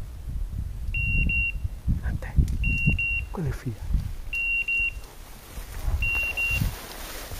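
Four pairs of short, high double beeps, one pair about every second and a half, from a hunting dog's beeper collar; in point mode such a collar sounds while the dog stands motionless on point. Low rumbling wind and rustling on the microphone underneath.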